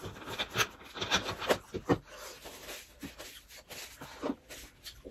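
Mealtime table noises: irregular clicks and knocks from dishes, glasses and a plastic soda bottle being handled, with eating sounds. A few louder knocks come between one and two seconds in.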